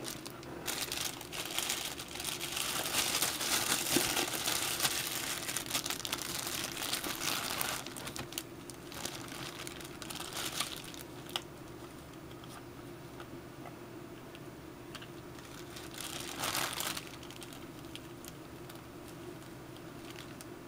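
A clear plastic bag worn over the hand as a glove, crinkling and rustling as the hand moves: a long stretch of steady crinkling for the first several seconds, then quieter, with short rustles near the middle and again about three quarters of the way through.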